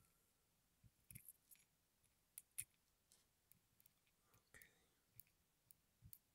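Faint, irregular small clicks and ticks of metal lock parts, the pins, springs and cylinder of a disassembled pin-tumbler lock, being handled and moved about, with short gaps of near silence between them.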